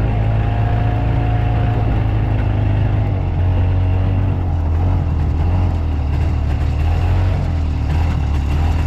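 Harley-Davidson golf car running steadily as it drives along, a loud, even low drone.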